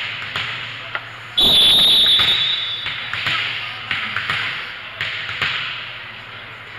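Referee's whistle blown once about a second and a half in, a single shrill steady tone lasting about a second. Scattered light taps and thuds ring round the gym before and after it.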